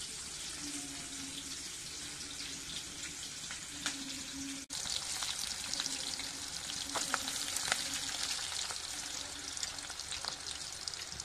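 Onions and masala frying in hot oil in a kadhai: a steady sizzle with scattered crackles and pops. The sound drops out for an instant about halfway through.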